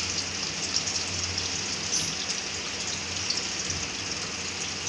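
Sliced onions frying in hot oil in a steel kadai: a steady sizzling hiss with many small scattered pops.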